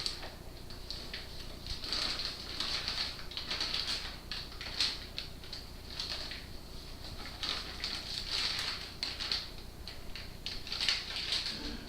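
Dry cake mix being poured from its packets into a bowl: uneven rustling and pattering of the powder and the paper packets.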